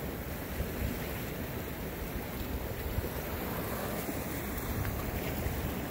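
Sea surf washing against a rocky shoreline, with wind buffeting the microphone in a steady low rumble.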